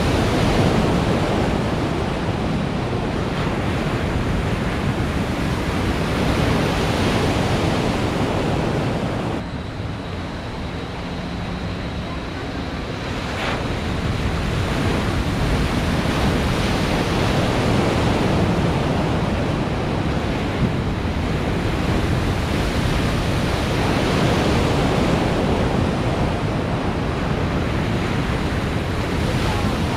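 Breaking waves and churning water in an artificial surf pool, a steady wash of noise. It drops suddenly about a third of the way in and swells back over the next few seconds.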